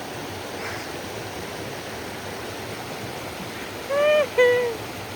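Steady rushing of river water, with two short, high voiced calls about four seconds in.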